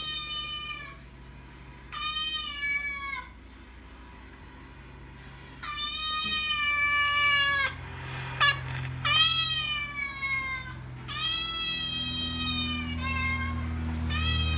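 Recorded cat meows played through a phone's small speaker: a series of about six drawn-out meows, each a second or two long and falling slightly in pitch, with short gaps between. A couple of sharp knocks about eight seconds in.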